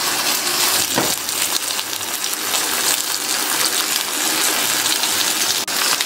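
Beef steaks frying in hot butter in a cast-iron grill pan, a steady sizzling hiss, with a light tick about a second in.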